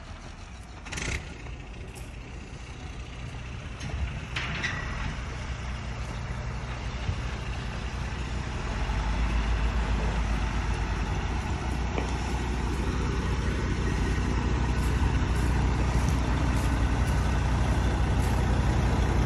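Heavy diesel engine running steadily with a low rumble, growing louder about nine seconds in, with a short hiss about four and a half seconds in.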